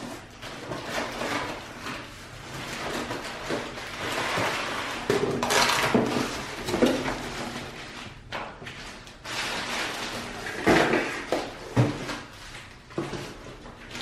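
Cardboard box flaps and plastic wrapping rustling and crinkling as a boxed capsule coffee machine is handled and lifted out, with several knocks against the cardboard and counter, the loudest about six seconds in and twice near eleven seconds.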